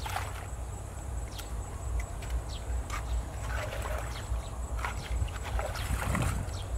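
Scattered scrapes and clinks of stones and small splashes of shallow water as a man digs out a muddy stream bed by hand, louder splashing twice in the second half, over a steady low wind rumble on the microphone.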